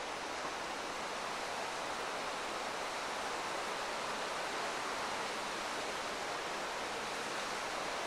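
Mountain river rushing over a rocky bed, a steady, even rush of water.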